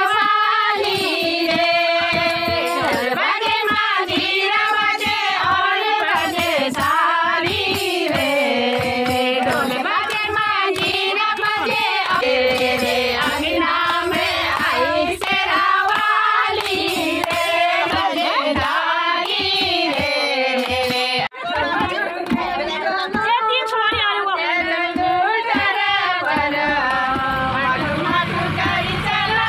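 Women singing a song together, with hand clapping.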